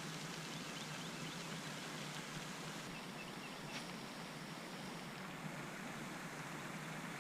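Steady outdoor background hiss with a few faint high chirps early on and a single short click a little past halfway.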